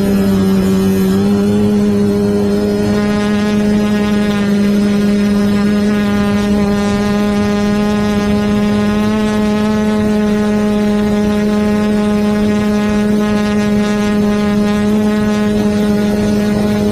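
Quadcopter's electric motors and propellers running with a loud, steady buzzing hum, heard close up from its onboard camera. The pitch steps up slightly about a second in as the craft climbs, then holds even.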